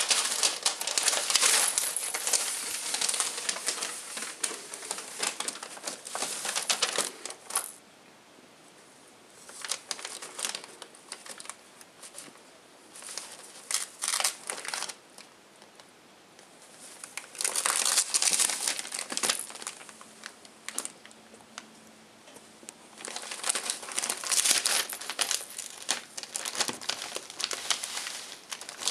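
Crinkly wrapping being pawed and rustled by kittens, in bouts of several seconds with quieter gaps between.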